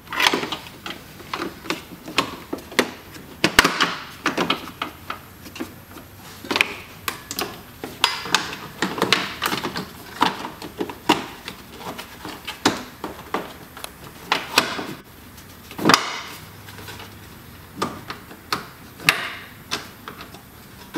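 Hard plastic brackets and trim being handled and pressed into place by hand: irregular clicks and knocks of plastic against plastic and metal, with a few louder knocks.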